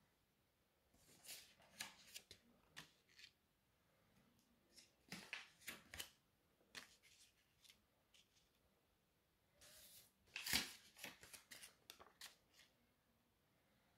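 Paper banknotes rustling and crinkling as they are handled and laid down one at a time on a table. They come in three short flurries of crisp crackles, the last the loudest.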